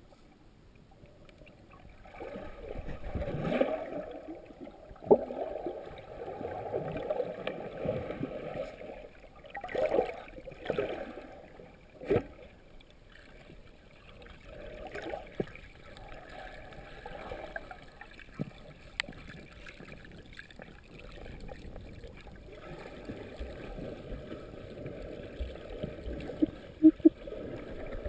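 Muffled underwater sound picked up through a camera's waterproof housing: water gurgling and sloshing in uneven swells, with a few sharp knocks.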